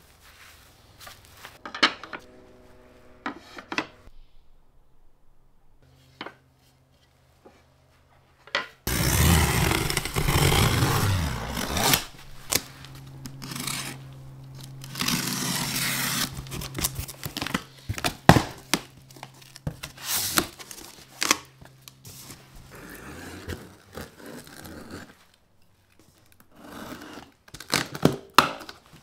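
Cardboard shipping box being torn open and handled: a long loud rip of tape or cardboard, then scraping and rustling with sharp knocks.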